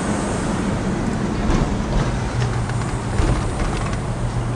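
Car engine and road noise heard from inside a moving car: a steady low hum over rushing noise, with a few light clicks.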